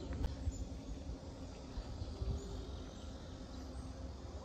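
Quiet outdoor ambience: a steady low rumble with a few faint, short high chirps.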